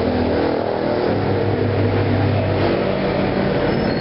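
Steady mechanical drone of a running engine, a constant low hum with no change in pitch.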